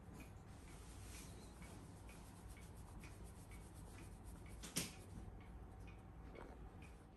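Quiet room tone with a steady low hum, faint even ticking about twice a second, and one sharp click nearly five seconds in.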